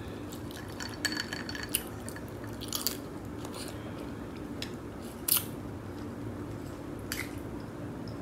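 Close-up eating sounds of a person working through a sauce-covered blue crab: wet chewing, smacking and sucking at the shell, with scattered sharp clicks and cracks. The loudest click comes about five seconds in.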